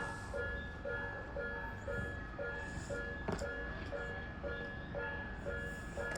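Japanese level-crossing warning bell sounding its repeated electronic 'kan-kan' ding, about two strikes a second, over a low rumble. A single sharp click about three seconds in.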